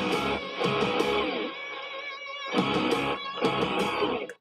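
A short clip of upbeat plucked-string music played as a sound effect from an online soundboard. It cuts off abruptly near the end.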